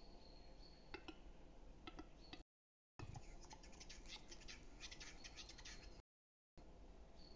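Faint western capercaillie display song: single dry clicks about a second apart, then a quicker run of clicks and scraping from about three seconds in. The sound is broken by three short dropouts, and a thin high whistle is heard near the start.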